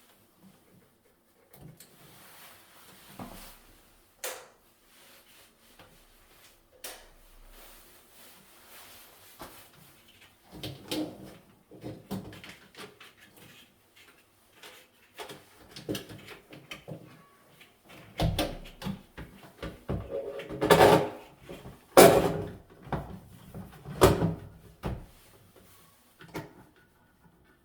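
Irregular clicks, knocks and clatter of parts and tools being handled while fitting a bathroom light or exhaust fan: faint rustling and ticks at first, then a run of sharp, louder knocks in the second half.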